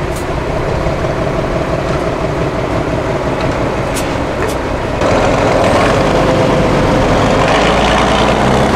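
8x8 Tatra trial truck's diesel engine running under load as the truck crawls over a dirt mound, revving up louder about five seconds in. A few short clicks or knocks sound along the way.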